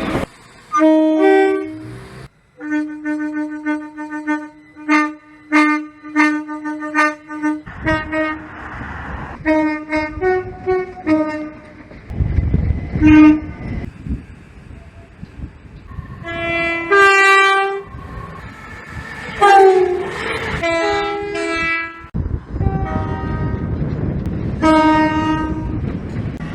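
A string of train horn blasts: short toots on two-tone horns, including a quick run of about eight short blasts of the same note, then longer two-note blasts, some bending down in pitch. Between the blasts trains rumble past.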